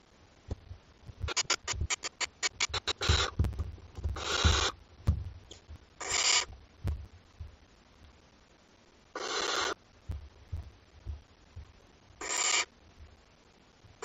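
Barn owl chicks giving rasping, hissing begging calls: about five separate half-second hisses, after a quick run of clicks between one and three seconds in. Low thumps and scuffling of the chicks moving on the wood chips run between them.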